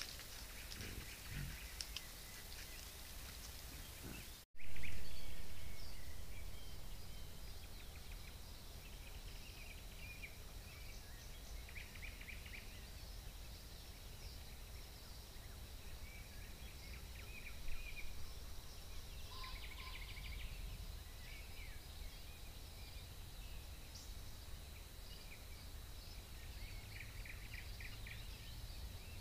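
Trail-camera woodland ambience: scattered short bird chirps and calls over a steady hiss and low rumble, with a faint steady high tone. About four and a half seconds in the sound drops out for an instant at a join between two camera clips, then comes back with a loud rush that fades over a second or two.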